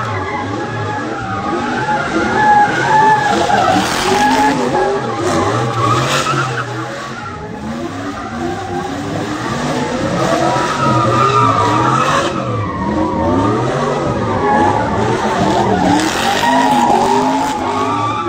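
Pickup truck doing donuts: its engine revs rise and fall again and again while the rear tyres squeal and skid continuously.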